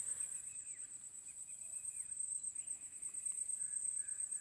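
Quiet ambience: a steady high-pitched insect drone with a few faint chirps scattered through it.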